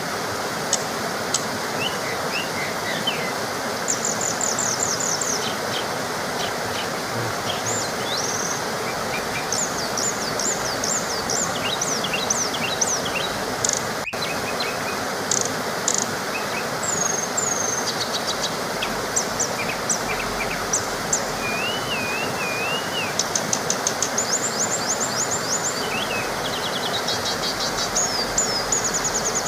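A small waterfall rushing steadily, with several birds singing over it: quick repeated trills, short chirps and a warbling whistle.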